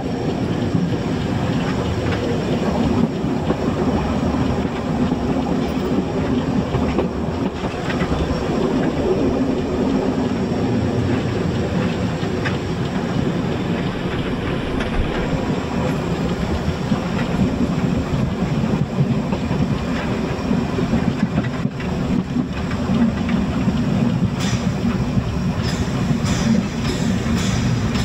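Narrow-gauge steam train running, heard from on board: a steady, dense rumble of wheels on rails. A run of sharp clicks comes near the end.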